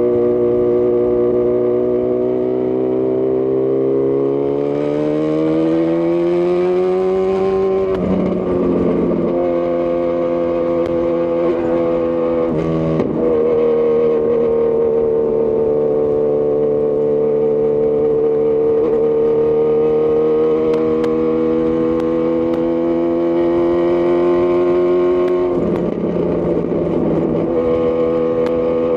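Honda CB1000R's inline-four through a Lextek CP1 full aftermarket exhaust, heard while riding. The engine note climbs under acceleration, with gear changes breaking it about eight seconds in and again about thirteen seconds in. It then holds at a steady cruise, with a brief throttle change near the end.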